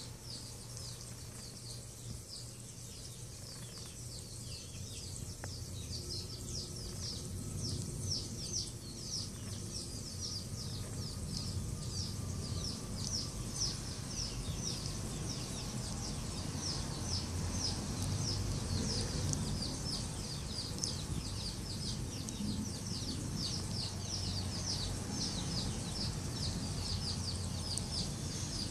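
Small birds chirping continuously: rapid, high-pitched, short chirps overlapping in a busy chorus, over a low steady hum.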